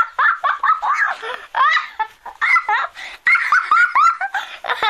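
High-pitched laughter in rapid, squealing bursts, one after another with brief breaths between.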